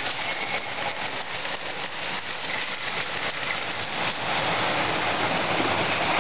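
Toy trains running on metal track: a dense, steady clatter of wheels and motors. It grows louder near the end as an American Flyer S gauge train comes out of the tunnel close by.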